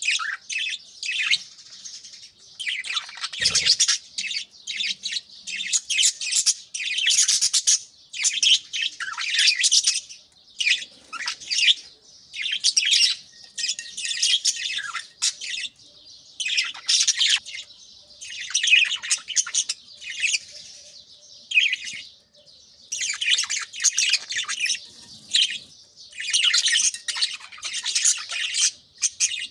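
A flock of budgerigars chirping and chattering, in quick bursts of high calls with short gaps between.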